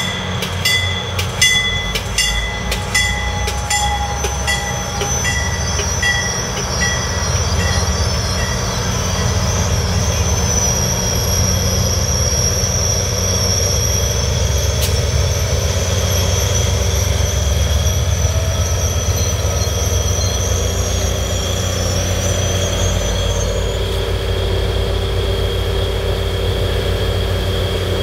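Commuter train rolling in and braking to a stop. Its wheels click over rail joints, the clicks spacing out as it slows. Then a high brake squeal runs for about a dozen seconds. Near the end comes the low, steady diesel rumble of the EMD GP39H-2 locomotive pushing at the rear, as it draws up alongside and idles.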